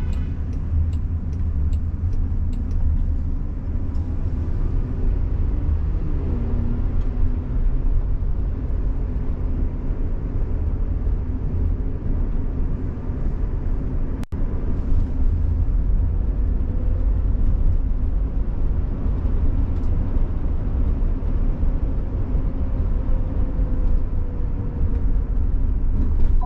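Road noise inside a Waymo Jaguar I-Pace's cabin while driving along a freeway ramp: a steady, deep rumble of tyres and wind, with a faint whine that slides in pitch now and then.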